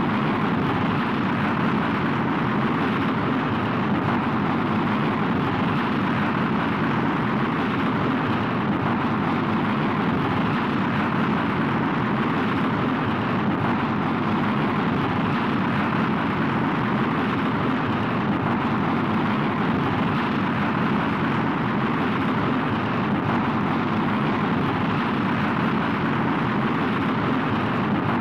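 Rocket launch: the engine exhaust roars steadily at an unchanging level.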